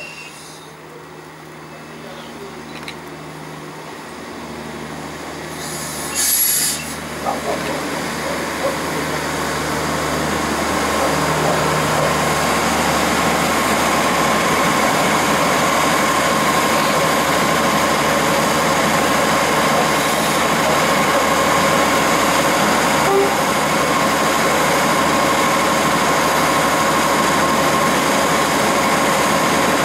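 Passenger train pulling into the platform, its running noise growing louder over the first ten seconds or so, with a brief loud burst of noise about six seconds in. It then stands at the platform with a steady hum and a steady whine.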